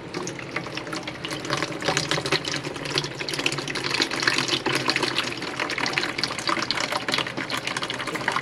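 Wort running out of the mash tun's valve and splashing steadily into a vessel below, during the vorlauf (recirculation) at the end of the mash.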